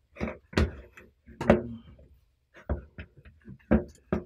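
Hands kneading scone dough in a glass mixing bowl: a series of irregular knocks and thumps, about seven, as the dough is pressed and the bowl bumps against the countertop.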